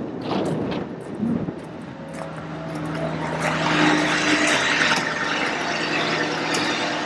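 Diesel engine of a 2008 Ford F-550 bucket truck, a 6.4 L Power Stroke V8, running steadily at idle after a restart. The drone grows louder about three seconds in, with a few light clicks over it.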